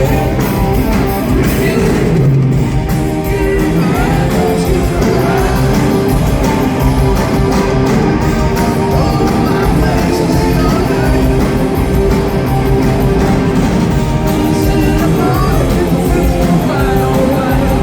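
Live hard rock band playing loud and steady, with a singer's voice over the band.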